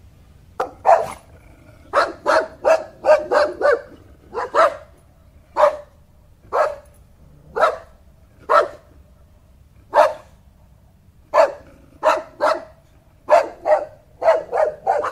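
A dog barking again and again: quick runs of three to five barks, with single barks about once a second in the middle stretch.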